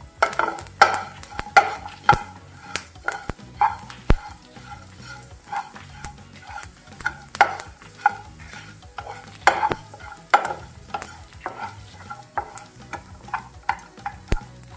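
Wooden spatula stirring and scraping onion, dried red chillies, garlic and whole spices as they dry-roast in a hot non-stick frying pan. The scrapes come irregularly, one or two a second, over a light sizzle.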